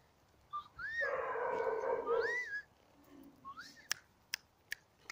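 Hungarian vizsla puppy giving a drawn-out, pitched whine-howl for about a second and a half, while a person whistles short rising-and-falling whistles three times. Near the end come a few sharp clicks.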